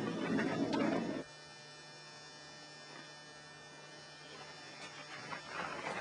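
A rough scraping noise that cuts off abruptly about a second in, followed by a steady faint electrical hum in the recording. Near the end, crackling of a mountain unicycle's tyre on dry leaves and dirt as it comes down the slope.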